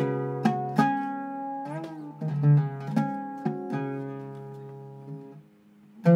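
Cedar-topped Iraqi-style oud played solo as a tone test: a slow opening phrase of single plucked notes that ring and fade, with a short sliding ornament about two seconds in. The last note dies away near the end.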